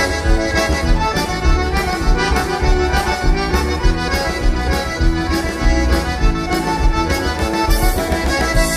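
Lively music with a steady beat of about two a second and sustained chords over it.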